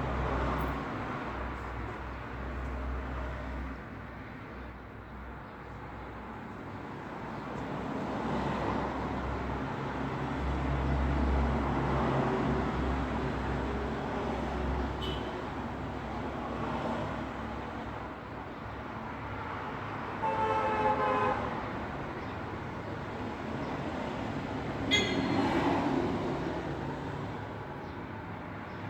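Road traffic: vehicles passing one after another, the engine and tyre noise swelling and fading over a low rumble. About twenty seconds in a horn sounds for about a second, falling slightly in pitch, and a short sharp sound comes near the end.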